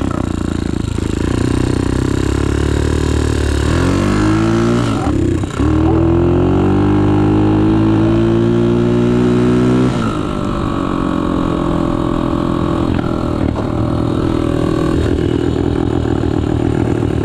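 Dirt bike engine revving: the pitch climbs about four seconds in and stays high for several seconds, with a brief break near the top. It falls back to a lower, steady run about ten seconds in, then climbs again near the end.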